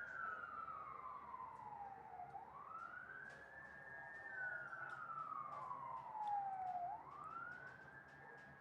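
Fire engine siren sounding faintly in a slow wail. Its pitch falls over about two seconds, rises again more quickly and holds for a moment, twice over.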